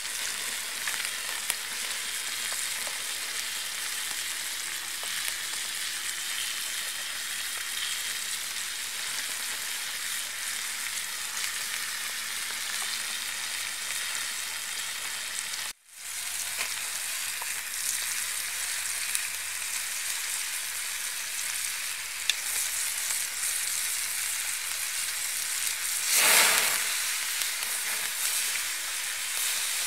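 Meat and vegetables sizzling on a hot stone slab over a wood fire: a steady frying hiss that drops out for a moment about halfway and swells louder briefly near the end.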